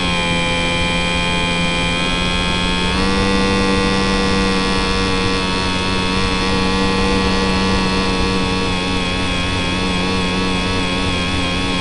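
Brushless 3000kV outrunner motor and propeller of a converted HobbyZone Champ ultra-micro RC plane, heard up close from a camera on the plane: a steady electric whine with several pitches stacked over a hiss. The whine steps up in pitch about three seconds in.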